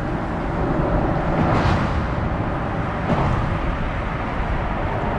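Steady rumble of car traffic driving over the bridge deck overhead, swelling slightly louder about a second and a half in as a vehicle passes.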